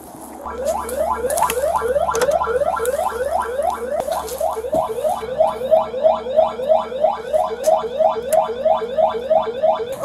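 Building intruder alarm siren sounding inside the building: a rising electronic whoop repeated rapidly, about three times a second, over a low steady hum.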